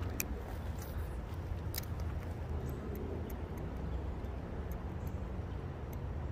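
Outdoor ambience by a creek: a steady low rumble with a few faint, scattered clicks.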